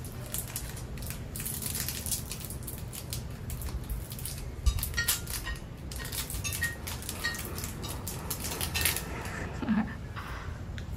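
Plastic wrapper of a mini KitKat crinkling and crackling as it is opened by hand, in a run of short, irregular crackles.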